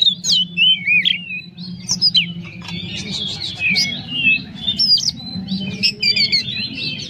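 Oriental magpie-robin (kacer) in full song: a rapid, unbroken stream of varied whistles, slurred notes and sharp chirps, packed with imitations of other birds' calls.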